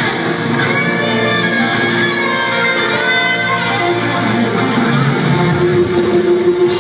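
Live rock band music with guitar prominent, heard from within the audience of a concert hall, with one note held through the last second or so.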